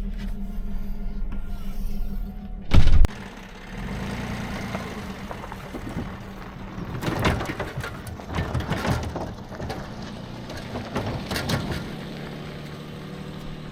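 A vehicle's engine idling, then a loud bang about three seconds in, followed by scattered metal clanks and rattles as a trailer is hitched up to the vehicle.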